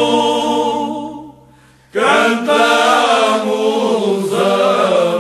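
A choir singing a Portuguese song about the Alentejo. A held note fades out about a second in, and after a brief pause a new sung phrase begins about two seconds in.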